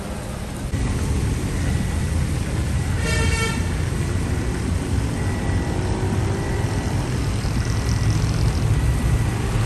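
Road traffic running through heavy rain, with a low vehicle rumble under the steady hiss, and a single short horn toot about three seconds in.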